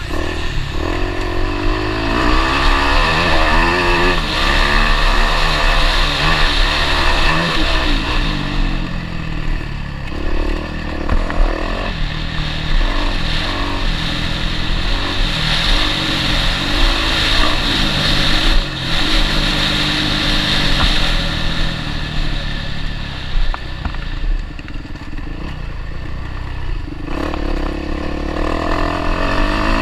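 Motocross bike engine heard from the rider's on-board camera, revving up and down again and again as it is ridden over rough ground. There is a sharp knock about two-thirds of the way through.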